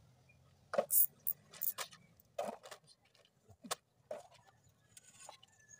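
Irregular knocks and clatters, about ten, from a metal pipe mast and its wire-grid parabolic antenna being handled and lifted, the loudest in the first two seconds.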